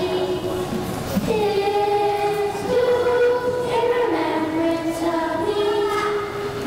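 Children's choir singing a slow tune of long held notes that move up and down in steps.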